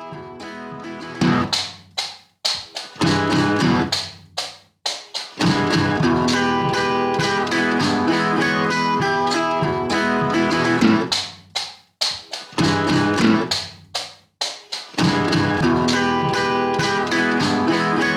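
Background music led by guitar, with short stop-start breaks in the phrasing.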